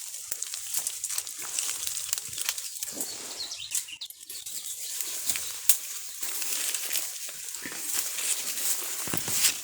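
Dry rustling and crackling with many small sharp clicks.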